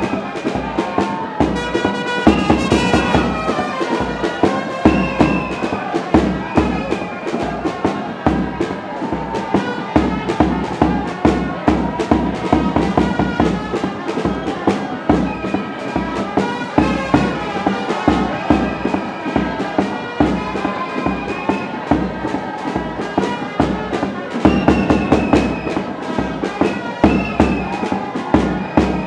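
Music with a steady beat and a sustained melody line.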